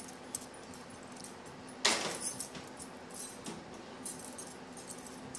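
Light clinking and jingling of a woman's bangles as she moves her hands, with scattered small clicks and one louder rustling knock about two seconds in, over a faint steady hum.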